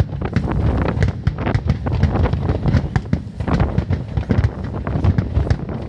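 Fireworks display with aerial shells bursting in quick succession: many sharp bangs and crackles over a constant low rumble.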